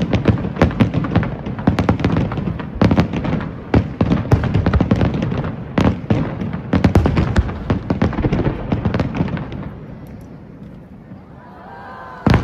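Fireworks display: rapid, overlapping bangs and crackling from bursting shells, with a low rumble beneath. The bursts thin out and quieten about ten seconds in, before a fresh loud burst right at the end.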